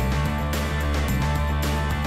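Background music: a rock track with guitar, bass and drums keeping a steady beat.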